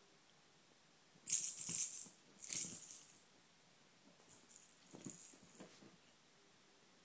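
Plastic rattle ball on a cat's feather wand toy shaken in two brisk bursts, about a second in and again a second later, then fainter rattling with rustling bedding as the cat pounces.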